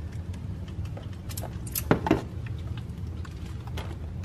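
Plastic toy squirt guns being triggered, with scattered sharp clicks and spurts of paint spattering against canvas and cardboard, two louder ones about two seconds in.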